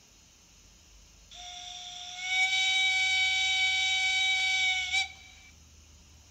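Digital sound decoder of a Märklin H0 BR 94 model steam locomotive playing a steam whistle: one long, steady blast of nearly four seconds that starts thin, fills out about a second in, and cuts off sharply.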